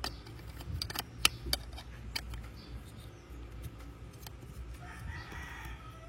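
Sharp, irregular clicks and taps of small plastic building-block pieces being handled and fitted together. A rooster crows faintly in the background near the end.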